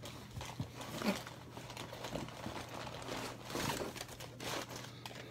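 VHS tapes and their cases being handled by gloved hands: rustling and crinkling, with a few light knocks of plastic.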